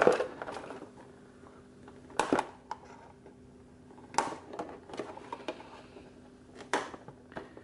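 Small scissors snipping the plastic ties that hold a toy wing to its cardboard packaging: about four short, sharp snips a couple of seconds apart, with faint rustling of the plastic tray between them.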